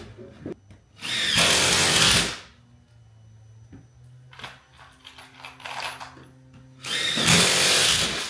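Power drill running in two bursts of about a second each, one about a second in and one near the end.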